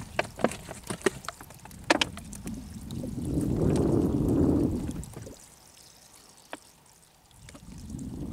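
Water sloshing against the hull of a small fishing boat, swelling up about three seconds in and falling away, with a few light clicks of a baited hook and wire handline being handled.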